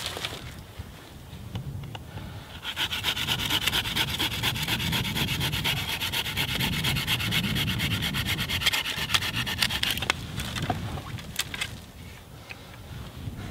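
Bahco Laplander folding saw cutting through a dead branch an inch or two thick: after some rustling, steady rapid back-and-forth sawing starts a few seconds in and stops suddenly as the piece is cut off.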